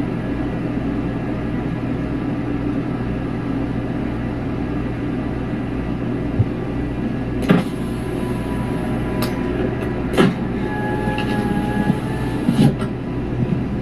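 Steady low rumble of a moving vehicle heard from inside, with a few sharp clicks and knocks about halfway through and again near the end.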